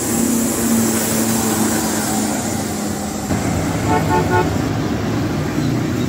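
Street traffic with buses, a minibus and motorcycles passing, their engines running. About four seconds in, a vehicle horn gives a short burst of rapid beeps.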